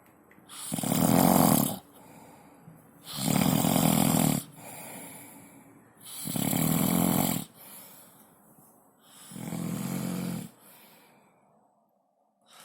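A drunk person snoring heavily: four loud snores about three seconds apart, each lasting about a second, with quieter breaths between them.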